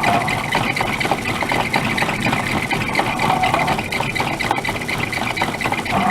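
Craftsman 109 metal lathe running under its electric motor and belt drive, a steady mechanical whir with a fine rapid rattle.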